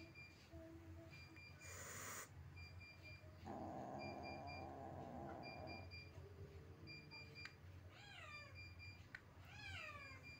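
Faint cat sounds as cats meet: a short hissing burst about two seconds in, a longer, rough, low cry from about three and a half seconds, and two meows falling in pitch near the end. A faint electronic beep repeats in short pairs throughout.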